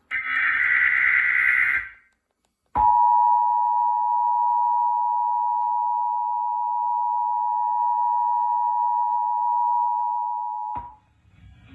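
Emergency Alert System activation for an Amber Alert. It opens with the last burst of the SAME digital data header, a buzzy screech lasting about two seconds. After a short gap comes the two-tone EAS attention signal (853 and 960 Hz), held steady for about eight seconds before it cuts off abruptly.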